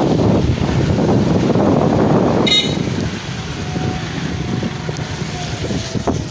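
Motorcycle riding along a lane with wind rushing over the microphone. About two and a half seconds in there is one short horn beep, and after it the rush grows quieter.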